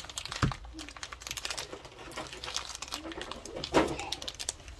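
Pokémon cards being handled and slipped into a plastic card sleeve: a run of light clicks and rustles, with a knock about half a second in and a louder one near four seconds.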